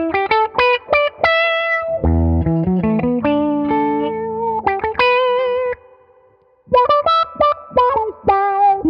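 Electric guitar played through an Electro-Harmonix Q-Tron Plus envelope filter, giving each note an auto-wah sweep. It plays a riff of quickly picked high notes, with a run of lower notes about two seconds in and a short break past the middle before the high notes return.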